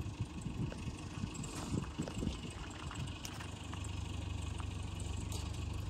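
Dodge Ram 1500 pickup engine idling under the open hood, a low steady hum that evens out about halfway through.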